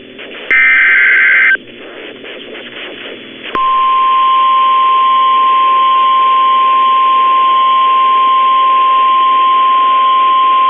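Emergency alert broadcast heard through a weather radio receiver. About half a second in there is a loud, one-second burst of the digital SAME header code, followed by radio hiss. From about three and a half seconds in, the steady single-pitch 1050 Hz NOAA Weather Radio warning alarm tone sounds, which signals that a warning is about to be read.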